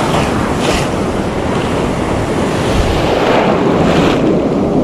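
Breaking surf and foaming wash rushing just below a microphone held close to the water, with wind buffeting the microphone. The wash swells louder about a second in and again near the end.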